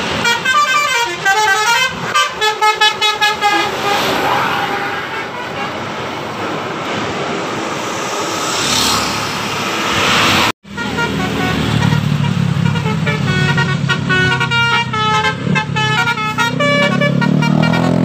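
Telolet horns on Indonesian coach buses: quick runs of several musical horn tones playing a tune, once about half a second in for about three seconds and again from about twelve seconds in, over the low running of the bus engines and passing traffic. The sound breaks off for an instant about ten and a half seconds in.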